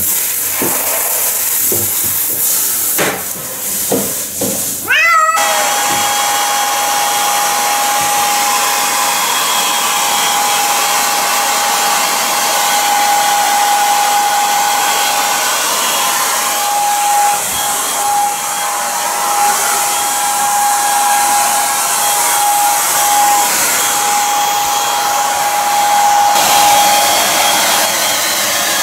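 Shower spray hissing onto a wet cat, and a short meow about five seconds in. Then a hair dryer comes on abruptly, running steadily with a high, even whine as it blows on the cat's damp fur.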